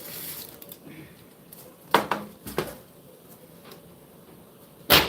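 Hard objects being handled: three sharp clacks, about two seconds in, again half a second later, and a louder one near the end, with a few faint taps between.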